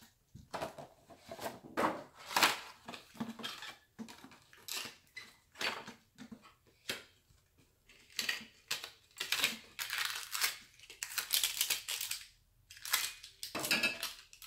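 Packaging being torn open and crinkled by hand while unwrapping a boxed set of oil pour bottles, in irregular bursts of rustling and tearing with short pauses between.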